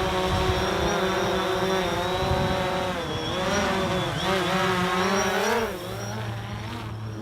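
DJI Phantom 4 quadcopter's propellers whining, the pitch wavering up and down as the motors speed up and slow down against strong gusts, with wind rumbling on the microphone. The whine drops away near the end.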